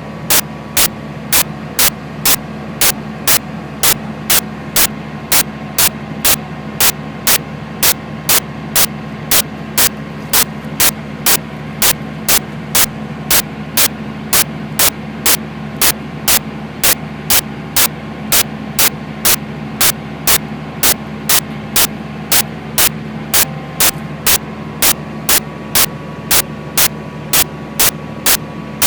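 John Deere 8400T tractor's diesel engine running steadily under load while pulling a chisel plough, with a low hum. A sharp click repeats evenly about twice a second over it and is louder than the engine.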